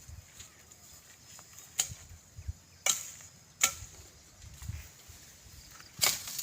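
Four sharp knocks or snaps at irregular intervals, the last and loudest near the end, over a faint steady high-pitched hiss.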